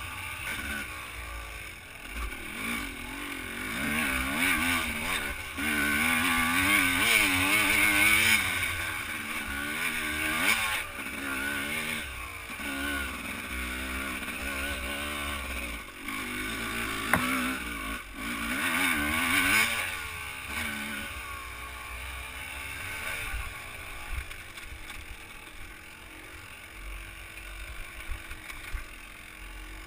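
Dirt bike engine, heard from the rider's seat as it is ridden over rough trail, its pitch rising and falling constantly with the throttle. It runs hardest through the first two-thirds and eases off in the last third, with one sharp click about 17 seconds in.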